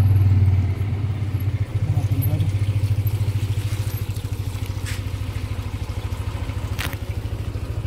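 Yamaha motor scooter engine running as the scooter rolls to a stop, then idling with an even, fast low pulse.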